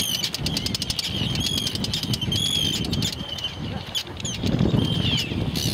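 Terns giving harsh, grating calls about once a second as they swoop low at people, the alarm calls of birds mobbing intruders.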